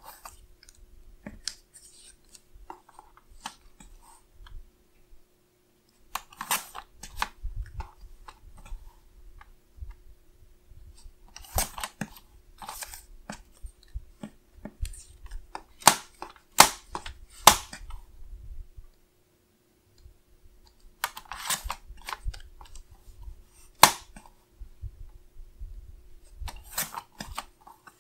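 Sliding-blade paper trimmer cutting printed sticker paper: a series of short scraping cuts spaced several seconds apart, with sharp clicks of the cutting head and paper being handled between them.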